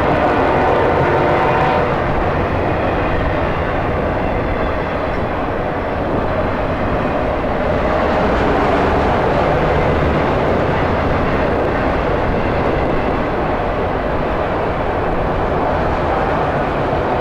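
A train running by with a steady, loud rumble.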